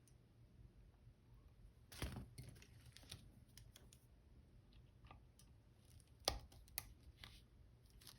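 Sparse small clicks and light scrapes of small metal tools and parts on a Canon A-1's power switch assembly as a washer and C-clip are fitted. There is a sharper click about two seconds in and the loudest one about six seconds in.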